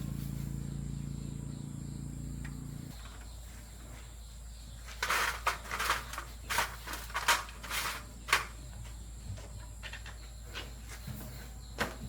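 A small electric motor, likely a fan motor under repair, hums steadily and cuts off about three seconds in. From about five seconds in comes a quick run of sharp clicks and knocks lasting about three seconds, with a few more scattered later.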